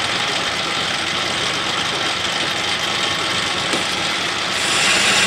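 Metal lathe running, spinning a cast iron workpiece in its chuck: a steady mechanical whirring hum that turns brighter and a little louder near the end.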